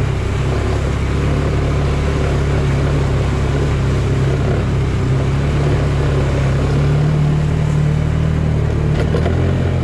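Engine of a Polaris side-by-side utility vehicle running steadily while driving, its note rising a little about seven seconds in.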